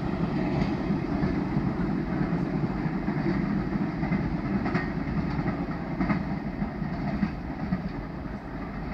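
Freight train of tank wagons rolling away along the track: a steady low rumble of wheels on rail with faint clicks now and then, slowly fading.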